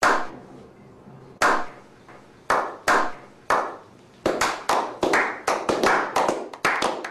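A slow clap: single hand claps about a second apart, quickening after about four seconds into faster clapping by several people.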